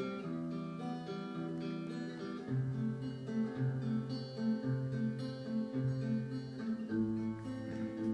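Acoustic guitar playing an instrumental intro: a repeating picked pattern over held low notes that change about once a second.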